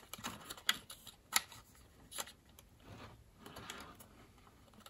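A few light clicks and taps of hard plastic model-kit parts, the cab and front fenders of a truck kit, being handled and pressed together in the fingers.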